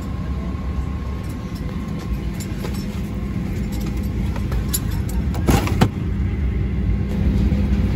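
Steady low rumble and faint hum of an airliner cabin: a Boeing 737-900ER parked at the gate. A brief rustle about five and a half seconds in.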